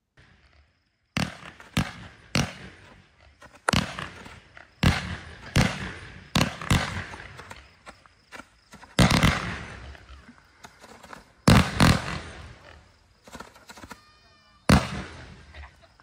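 Great Grizzly Mini Brocade Crown Waterfall 18-shot firework cake firing: about a dozen sharp reports at uneven intervals, some in quick pairs, each trailing off over a second or so.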